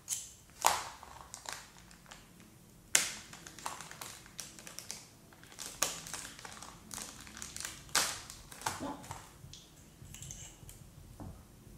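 Plastic bag of model-kit sprues crinkling and rustling as it is slit open with a small knife, with sharp plastic clicks now and then, about four in all.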